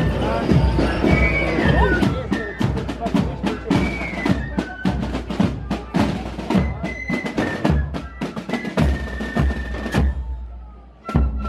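Parade drums beating with snare rolls and bass-drum hits, with high piping tones held over them. The sound thins out briefly near the end, then comes back in at full strength.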